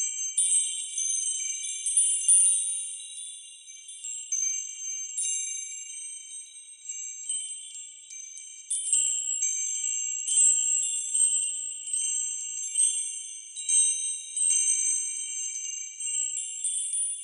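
High, bright chimes ringing, with many overlapping tones struck again every second or so and no low notes.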